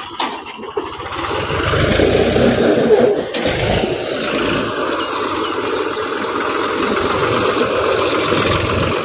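Mahindra 275 DI ECO tractor's diesel engine running as the tractor drives off, getting louder over the first couple of seconds, easing briefly after about three seconds, then running steadily.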